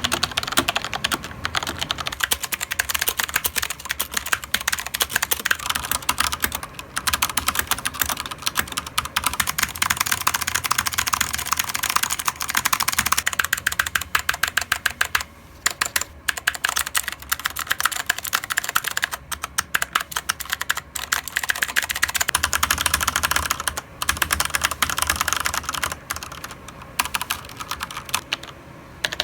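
Fast, continuous typing on a mechanical keyboard: a dense run of key clicks, with brief pauses about halfway through and again about two-thirds of the way in.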